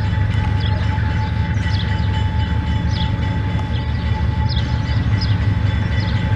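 Diesel-electric freight locomotives running with a deep, steady engine rumble as a loaded limestone train led by GE BB36-7 units moves through the station yard, with a faint steady whine over it. Short high descending chirps repeat about once a second.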